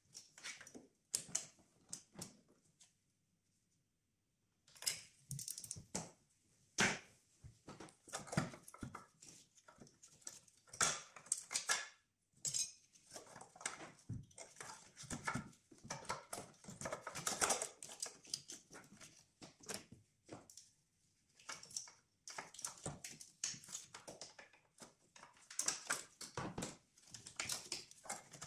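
Irregular clicks, taps and clatter of a screwdriver, screws and hard plastic engine parts being handled in an engine bay as a plastic part under the intake manifold is unscrewed and worked loose, with a short quiet pause about three seconds in.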